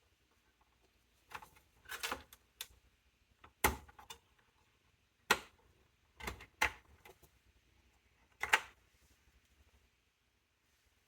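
Irregular sharp clicks, knocks and short scrapes of plastic and metal computer parts being handled inside a small-form-factor desktop PC during disassembly, about eight separate strikes.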